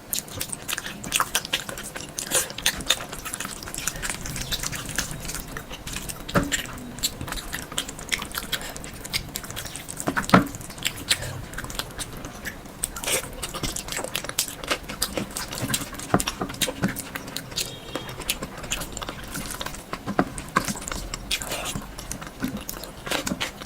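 Close-miked eating sounds: irregular chewing and biting with wet mouth clicks and smacks.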